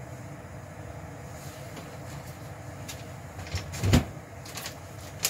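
Covered pot of beef stew simmering on a gas stove: a steady low rumble with scattered faint clicks, and one loud knock about four seconds in, with a sharper click near the end.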